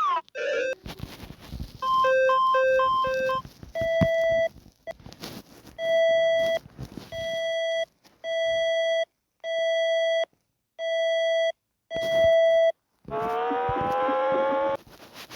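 A series of electronic emergency alert tones, one pattern after another: four short two-note beeps, then a single beep repeating about once a second, then several tones sounding together and rising slightly in pitch near the end.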